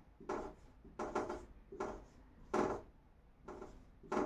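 Dry-erase marker squeaking and scraping on a whiteboard as digits are written, in a string of short separate strokes.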